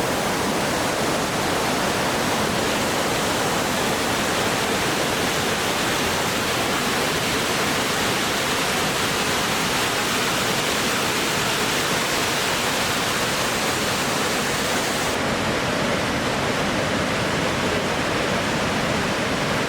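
Kegon Falls, a tall plunge waterfall, rushing steadily: a loud, even roar of falling water. The sound turns slightly duller about fifteen seconds in.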